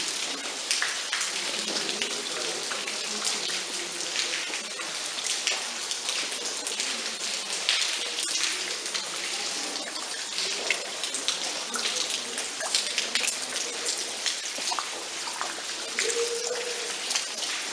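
Steady rain, with many separate drops hitting close by.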